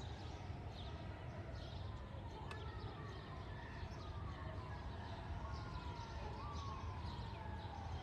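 Hillside town ambience: a steady low rumble, with a faint distant wailing tone that slides down in pitch, jumps back up and slides down again several times, and a single sharp click about two and a half seconds in.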